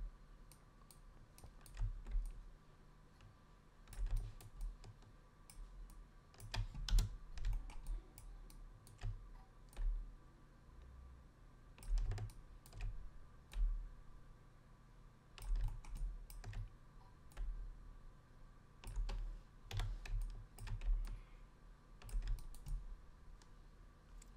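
Irregular clicking of a computer keyboard and mouse as shortcuts are pressed and edits made in 3D modelling software, with soft low thumps under the clicks and a faint steady hum.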